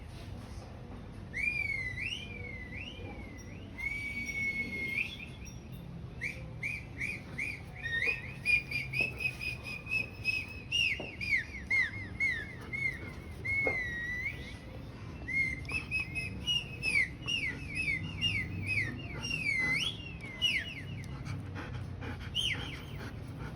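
Whistling: high swooping whistles that rise and fall, then from about eight seconds in long runs of quick warbling notes with short breaks between them.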